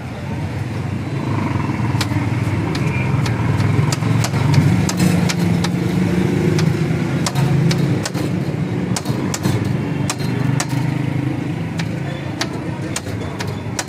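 A metal tool clicks and scrapes on a flat steel griddle as shawarma chicken is chopped into bits, in many irregular sharp taps. Under it a motor vehicle engine rumbles steadily, growing louder in the middle and then easing off.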